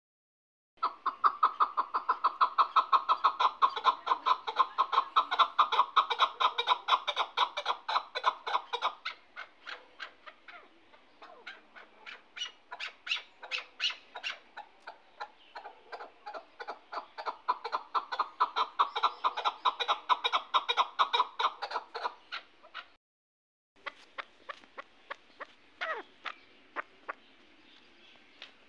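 Chukar partridge calling: long runs of rapid clucking notes, about five a second, loud at first, softer in the middle, then loud again, with scattered single notes near the end.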